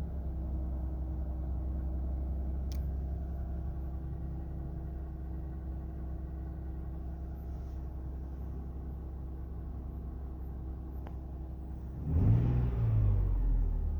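2002 Lexus IS300's 3.0-litre inline-six idling after a cold start, with a steady whine that is most noticeable at idle; the owner suspects a failing oil pump rather than the alternator. The engine is briefly revved about twelve seconds in.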